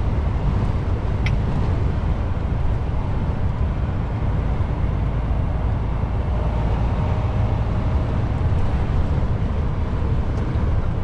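DAF truck's diesel engine and tyres heard from inside the cab while driving: a steady low drone.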